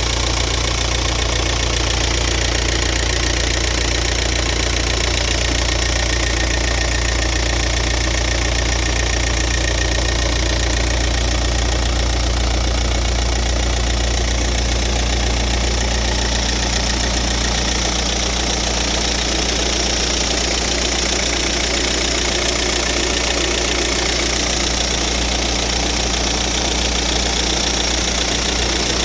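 VW Group 1.9 TDI diesel engine (engine code AVF) idling steadily and making a strange noise that its owner is recording.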